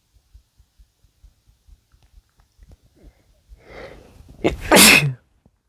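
A man sneezes once, loudly, near the end, after a drawn-in breath of about a second.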